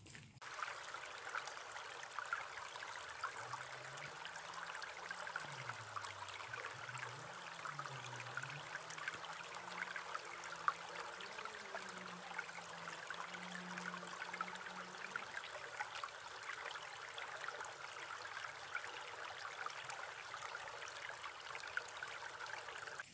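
Shallow stream rushing over and between rocks, a steady gush of water. A faint low hum wavers up and down in pitch for several seconds midway.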